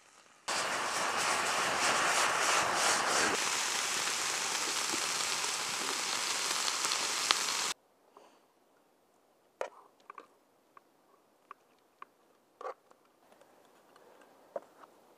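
Venison frying in a pan over a campfire: a loud, steady sizzle that starts and stops abruptly. It is followed by quiet with a few light clicks and taps.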